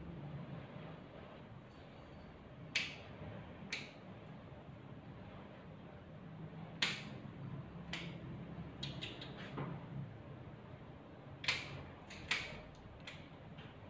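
Grooming scissors snipping the hair around a small dog's face: about ten short, sharp snips at irregular intervals, over a steady low hum.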